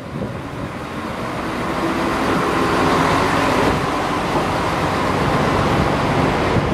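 Tarumi Railway Haimo 295 diesel railcar pulling away, its diesel engine working under load with steady engine tones, growing louder as the car moves past.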